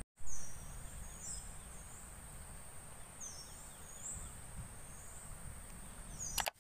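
Outdoor ambience: a steady high-pitched insect drone with a bird giving short falling chirps, about eight of them spread out, over a low rumble. There is a short bump right at the start.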